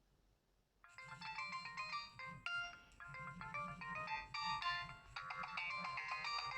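Nokia 2630 mobile phone playing a polyphonic ringtone: a quick electronic melody of short notes over a pulsing bass. It starts about a second in and grows fuller and louder about five seconds in.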